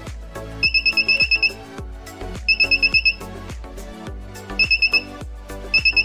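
Small buzzer on an IR remote tester circuit sounding four bursts of rapid high beeps, about eight a second, each burst shorter than the last, as remote buttons are pressed: the beeps show that the TSOP4838 receiver is picking up the remote's infrared signal. Background music with a steady beat plays underneath.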